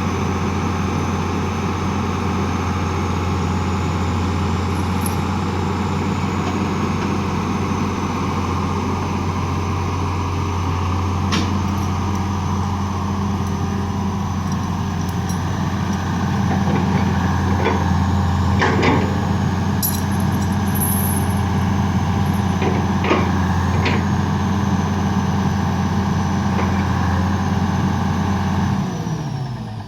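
An engine running steadily, with a few sharp metallic knocks, then shut off about a second before the end, its pitch falling as it winds down.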